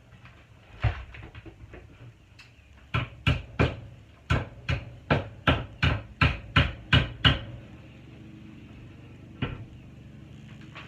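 Hammer blows: a single knock about a second in, then a steady run of about a dozen sharp strikes at roughly three a second, and one more knock near the end.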